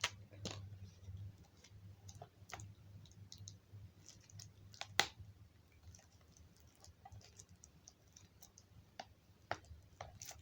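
Plastic DVD case being handled and unwrapped: faint irregular clicks and crinkles, with a few sharper single clicks, the loudest about five seconds in, over a steady low hum.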